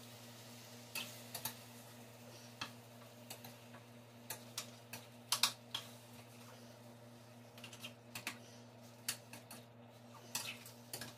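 A cooking utensil knocking and scraping against a frying pan as chicken wings are stirred, in irregular clicks and short clusters, over a steady low hum.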